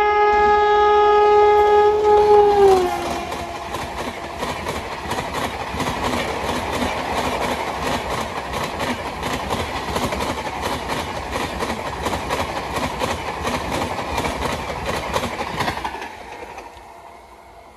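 An electric locomotive's horn sounds a steady chord, dropping in pitch and cutting off about three seconds in as the locomotive passes at speed. Then the coaches rush by with a rapid clickety-clack of wheels over the rail joints, which fades about sixteen seconds in as the last coach goes past.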